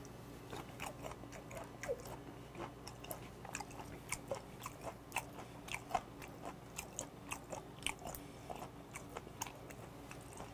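Close-miked chewing of raw mullet sashimi: wet mouth clicks and smacks, irregular, a few a second, over a faint steady low hum.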